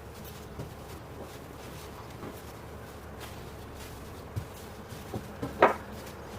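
Quiet handling noises over a steady faint hiss, with a few soft knocks and one sharper, louder knock about five and a half seconds in.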